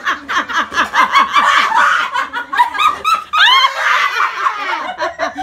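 Women laughing loudly together, in quick repeated bursts of laughter.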